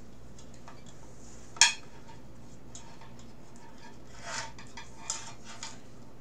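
Metal mess kit clanking as it is handled and strapped onto a bread bag: one sharp clank about a second and a half in, then a few lighter knocks and rattles near the end.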